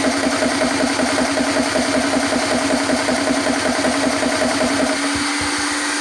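CS GX3 portable PCP high-pressure air compressor running with a rapid, even chugging as it nears the end of a tank fill. About five seconds in, the chugging and low rumble stop and a steady hum carries on.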